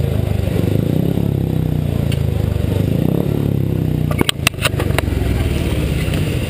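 Steady low drone of motorcycle engines running in the speedway pits, with a few sharp knocks and clicks about four seconds in.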